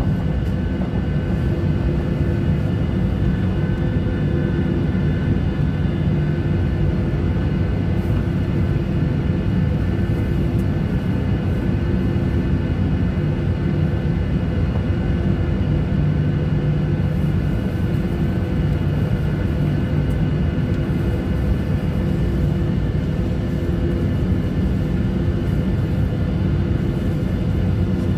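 Jet airliner engines heard from inside the passenger cabin, a steady low rumble with a faint constant whine, as the plane taxis before take-off.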